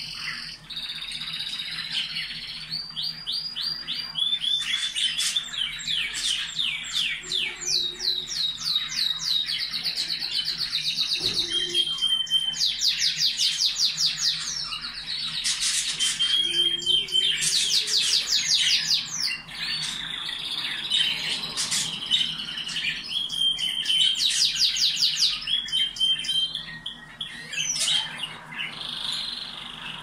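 Domestic canary singing a long, varied song: fast trills of quickly repeated high notes, each trill changing to a new one, with a few short steady whistles in between.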